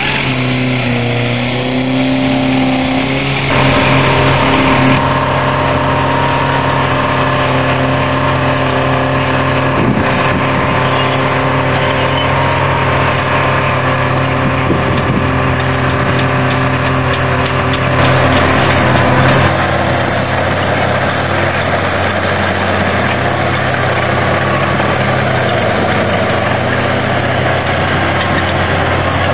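Engine of a vintage crawler tractor running steadily under load as it tows a scraper through loose dirt, with other earthmoving machines working. It is louder for a moment about four seconds in and again around eighteen seconds in.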